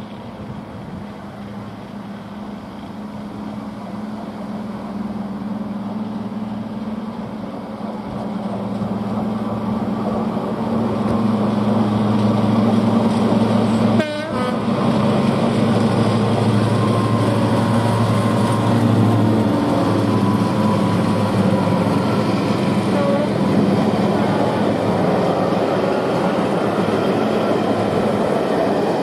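Class 55 Deltic locomotive 55009 approaching and passing with its twin Napier Deltic two-stroke diesel engines running: a steady low drone that grows louder over about twelve seconds, then stays loud as its train of coaches runs by on the rails.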